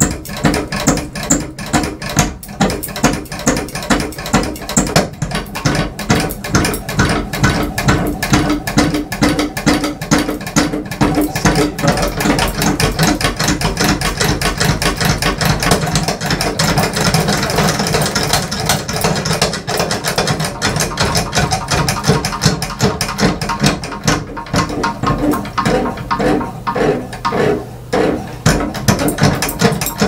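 Ceiling fan running badly out of balance, with all three blades on one side: it wobbles at half power, and its housing and mount rattle and knock in a rhythm of about two beats a second. The beats blur into one steady rattle midway, then pulse clearly again near the end.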